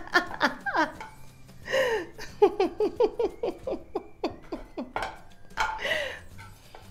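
A metal spatula clinking and scraping against a wok as cooked chicken wings are scooped out. A woman's voice runs over it in quick, short falling notes, like giggling or playful vocalizing.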